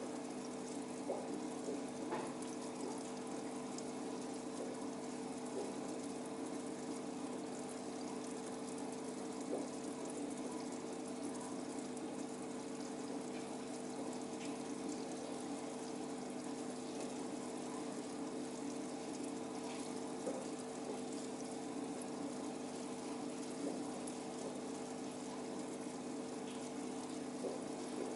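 Aquarium pump running with a steady two-tone hum over a constant wash of moving water, with a few faint ticks.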